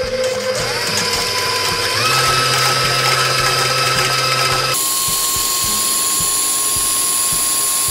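Professional 550 HD stand mixer whisking egg whites, its motor whine climbing in pitch in steps as the speed is turned up towards medium-high. The sound changes abruptly about five seconds in.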